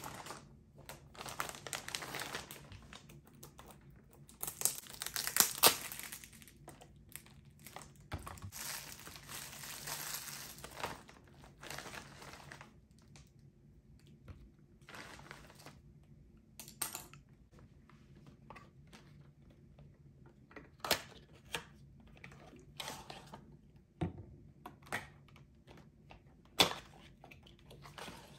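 Plastic shopping bag rustling and crinkling as items are pulled out of it, mostly in the first half. Later come separate sharp taps and knocks as cardboard boxes are opened and bottles and boxes are set down on a marble countertop.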